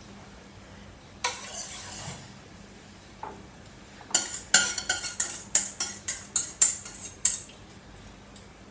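Spoon stirring beaten eggs into onions and tomatoes in a microwave dish, clicking and scraping against the dish in quick strokes, about four a second, from about four seconds in to about seven. A brief softer scrape comes about a second in.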